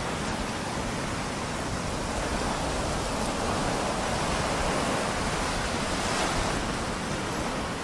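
Sea surf washing onto a beach: a steady rushing noise that swells and eases, with low wind rumble on the microphone.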